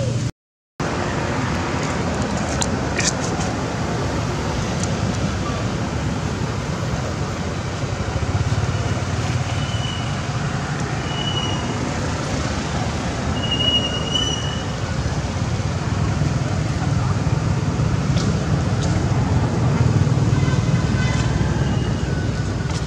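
Steady low rumbling outdoor background noise, with a brief dropout near the start and three short high chirps around the middle.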